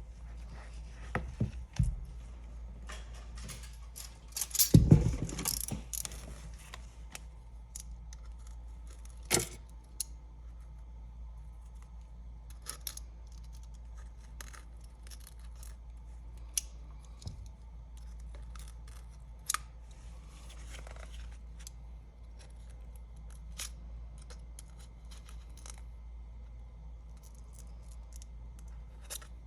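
Small tools clicking and scraping against the iPad 10 while its glass is being pried off, with a louder stretch of scraping about five seconds in and scattered sharp clicks, over a steady low hum.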